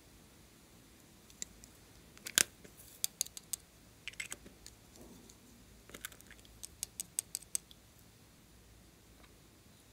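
Sharp clicks and taps of small tooth-shaped plastic glitter containers being opened and tapped to shake glitter onto slime. The loudest click comes about two and a half seconds in, and a quick run of about five light ticks follows in the second half.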